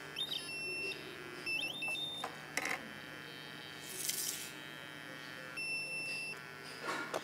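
Three short bursts of electronic beeping, each under a second, whose pitch steps and slides up and down, as from the alarm buzzer of a home-made light sensor circuit. A short hiss comes about four seconds in, and clicks near the middle and the end.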